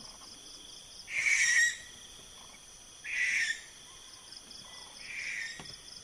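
Barn owl giving three harsh, hissing screeches about two seconds apart, each lasting about half a second, the last one fainter. Insects trill steadily in the background.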